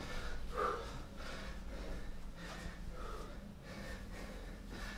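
A man breathing hard and deeply, about one breath a second, as he recovers from a hard set of burpees.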